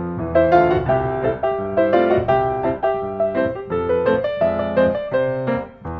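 Background piano music, a quick, even run of notes.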